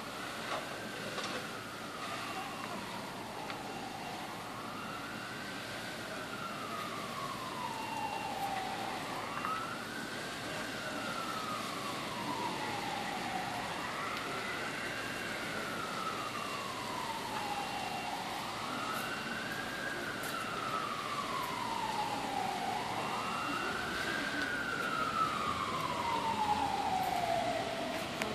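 Fire engine siren wailing in a slow cycle, pitch rising quickly then falling slowly, repeating about every five seconds and growing louder near the end.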